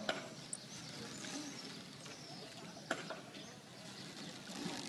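Riverside ambience heard from a rowing boat: distant voices and bird chirps over a steady hiss, with two sharp knocks about three seconds apart.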